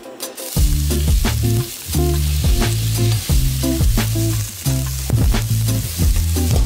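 Chopped onions sizzling in hot oil in a stainless steel pot as a spatula stirs them, the sizzle starting about half a second in. Background music with a steady beat plays underneath.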